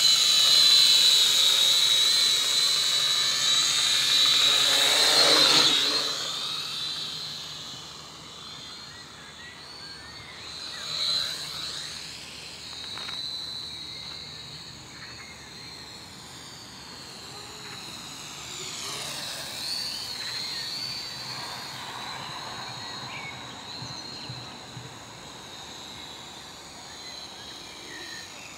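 Syma X5C quadcopter's four small brushed motors and propellers whining high as it flies close by, loud for about the first six seconds, then much fainter as it flies off. The whine swoops down and back up around eleven seconds in and again about nineteen seconds in as the throttle changes.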